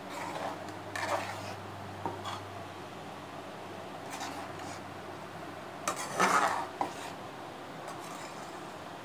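A metal spoon stirring and scraping a stainless steel pan of simmering coconut curry in a few separate strokes, the loudest about six seconds in, over a faint steady low hum.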